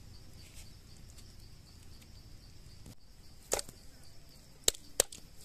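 Steady high, evenly pulsing buzz of insects, broken by three sharp knocks: one about three and a half seconds in, then two close together near the end.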